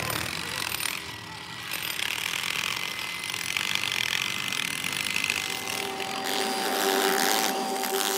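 Workshop machinery running with a steady hissing, grinding noise; about five and a half seconds in, a steady whine joins it.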